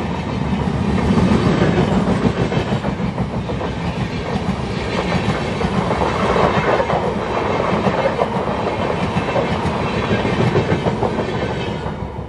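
Express train coaches rolling away along the track: a steady rumble of wheels on rail with rapid fine clicks, fading near the end.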